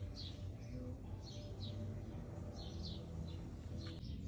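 Small birds chirping: short high chirps that fall in pitch, repeating about twice a second, over a low steady hum.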